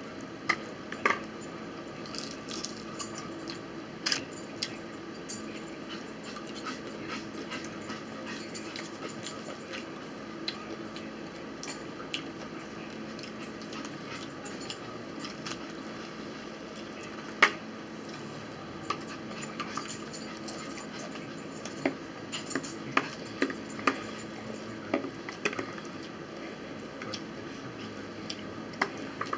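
Metal forks clicking and scraping against a plastic bowl and plastic food trays while two people eat, with scattered sharp clicks over a steady low room hum.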